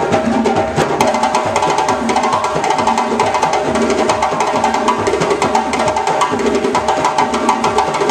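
West African drum ensemble playing a fast, dense rhythm together: djembe hand drums over barrel-shaped dunun bass drums struck on a stand.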